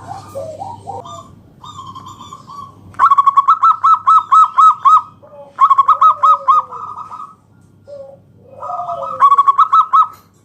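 Zebra dove (perkutut) singing: three loud runs of rapid, repeated cooing notes, the first about three seconds in, with softer calls before and between them.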